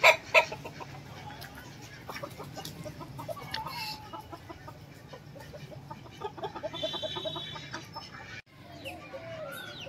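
Chickens clucking, many short calls one after another, with two loud sharp knocks right at the start.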